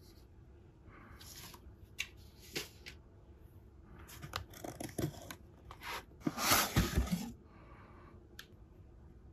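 Paper and cardboard packaging rustling and scraping under handling, with scattered light taps, as a boxed speaker is gripped and lifted out of its cardboard shipping box. The loudest rustle comes about six to seven seconds in.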